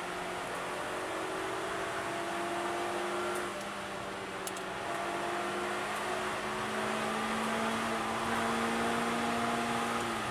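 Suzuki Swift Sport's four-cylinder engine pulling hard, heard from inside the cabin over tyre and wind noise. Its pitch rises slowly, with a short dip about three and a half seconds in and a drop just before the end.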